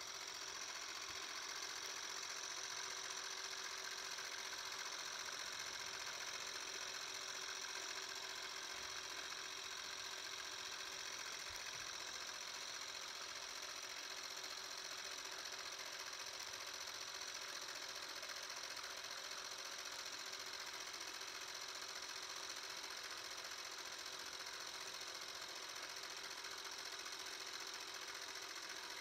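Paillard Bolex H16 16mm cine camera running on its fully wound clockwork spring motor: a steady mechanical whirr of the drive and film mechanism.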